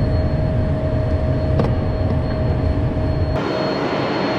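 Steady cockpit noise of a Phenom 100 light jet in flight: the rush of airflow and engines with a thin steady whine. A little over three seconds in, the deep rumble drops away suddenly.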